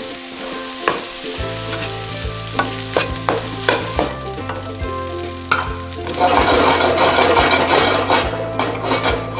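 Fried rice being stir-fried in a hot pan: it sizzles while the spatula knocks and scrapes against the pan once or twice a second. About six seconds in, the sizzle swells and gets louder.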